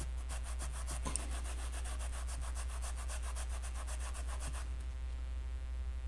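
Spongy sanding block rubbed in rapid back-and-forth strokes over the gold-finished edge of a spinning reel's spool, smoothing out a rough spot that was snagging the fishing line. The strokes stop about four and a half seconds in.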